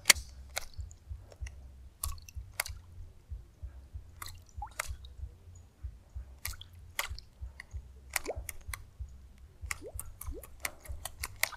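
A topwater zara lure (Lizard Fishing Tornado) being twitched across the water: irregular soft wet clicks and small splashes, coming quicker near the end, over a low rumble.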